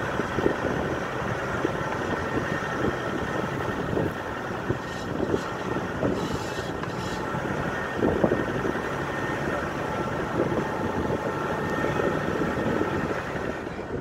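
Off-road SUV driving slowly along a rough dirt forest track: engine running under the crunch of tyres on dirt, with frequent short knocks and jolts from the bumpy ground, and wind on the microphone.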